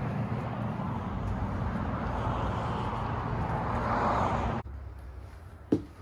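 Steady outdoor noise, a low rumble with hiss, like wind and traffic around an open lot, that cuts off abruptly about four and a half seconds in. A single sharp knock follows near the end.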